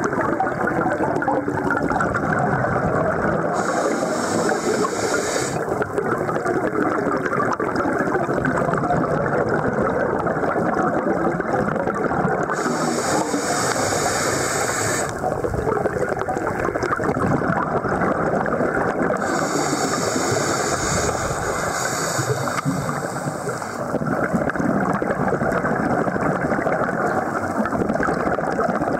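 Muffled underwater rushing and gurgling heard through a dive camera's housing, with a hiss lasting about two seconds every seven or eight seconds from the filming diver's scuba breathing.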